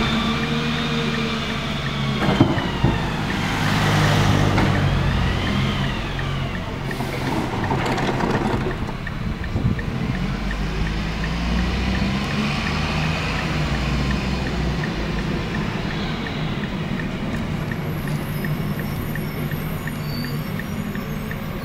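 Rear-loader garbage truck with a Leach packer body: the diesel engine revs up and down as the hydraulic cart lifter dumps a cart and the packer runs, with a couple of sharp clanks. It then runs more steadily as the truck drives on.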